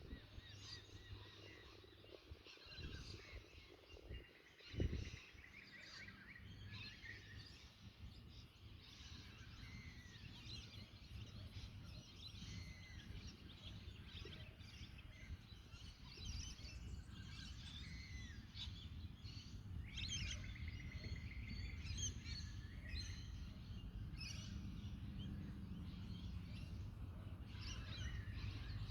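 Many small birds chirping and trilling over a low wind rumble that slowly grows louder, with a dull thump about five seconds in.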